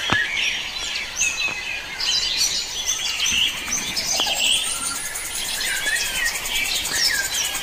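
A chorus of many small birds chirping and calling at once: overlapping short whistled notes, quick up-and-down sweeps and trills. A single brief click sounds right at the start.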